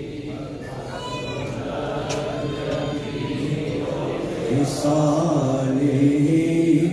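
Men's voices chanting a devotional recitation, closing on one long, slightly wavering held note in the last couple of seconds.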